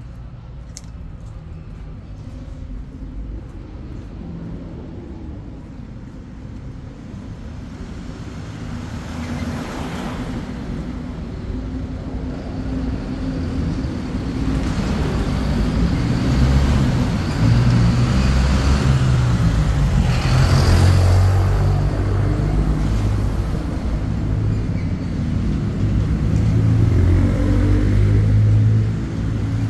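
Street traffic: motor vehicles running and passing close by, a low engine rumble with the hiss of tyres. It grows louder from about a third of the way in, is loudest through the second half, and eases off just before the end.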